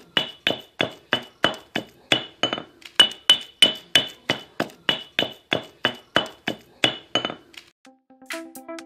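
Granite pestle pounding soaked dried chilies and salt in a granite mortar for a curry paste: steady strikes about three a second, each with a short stony clink. The pounding stops about a second before the end.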